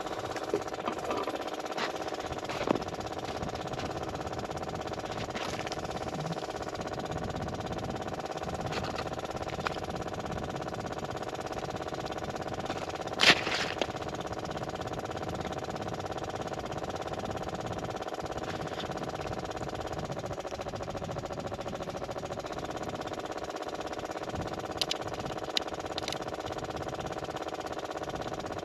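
An engine running steadily at one pitch, with a few sharp knocks, the loudest about 13 seconds in.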